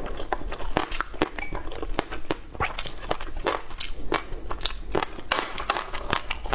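Close-miked chewing and mouth sounds of someone eating: a steady run of irregular wet clicks and small crunches, several a second.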